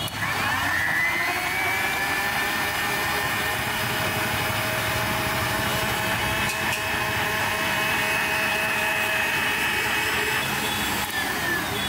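Electric blender running a jar of mixed fruit juice: the motor spins up at the start with a rising whine, runs steadily for about ten seconds, then winds down and stops near the end.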